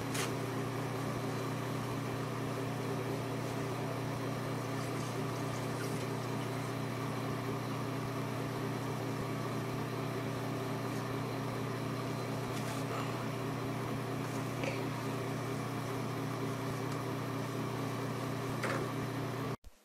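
Steady low motor hum of a bathroom exhaust fan, with a few faint taps as a cat paws a toilet-paper roll on its holder.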